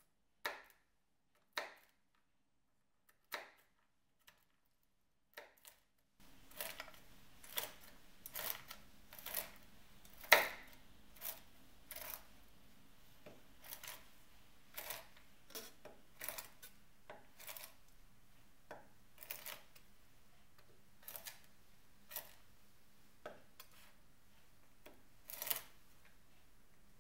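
A chef's knife chopping pecans on a wooden cutting board. A few sparse taps open the clip, then sharp chops come about once a second, sometimes two in quick succession, with the loudest about ten seconds in.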